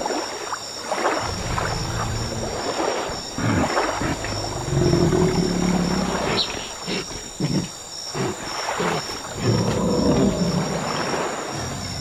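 Sound-designed dinosaur calls: two long, low moans, about five and ten seconds in, with rough grunting between them, over water sloshing.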